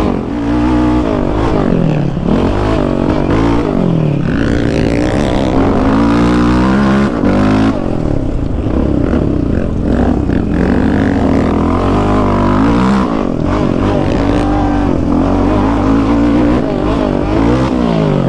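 Yamaha Raptor 700 sport quad's single-cylinder engine, on a full aftermarket exhaust, ridden hard: revving up and dropping back again and again, its pitch climbing and falling many times.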